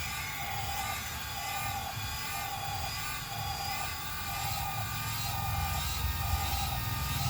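Heavy diesel machinery engine running with a steady low rumble, with a mid-pitched tone pulsing about once a second.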